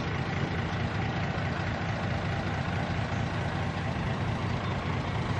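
Heavy truck engine idling steadily, a constant low rumble.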